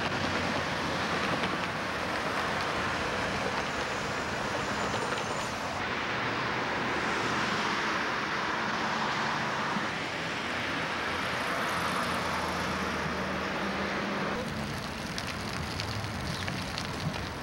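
Steady rush of city street traffic, cars going by. The sound changes abruptly three times where the recording cuts between shots.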